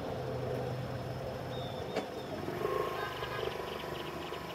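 Cruiser-style motorcycle engine running steadily at low revs while rolling slowly, with a faint higher whine joining after about two and a half seconds and a single click about two seconds in.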